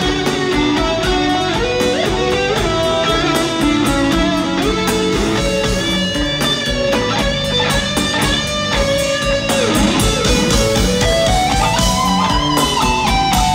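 Live instrumental rock band playing loud: an electric guitar lead over bass guitar and drums, the guitar line climbing in pitch near the end.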